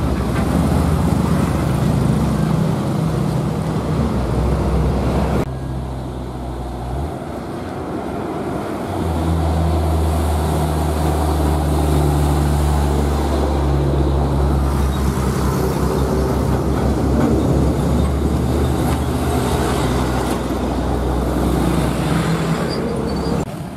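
Heavy diesel trucks passing close by on the road, their engines a deep steady drone over tyre and traffic noise. The sound changes abruptly about five seconds in, and a loud low engine drone from a passing truck builds from about nine seconds on.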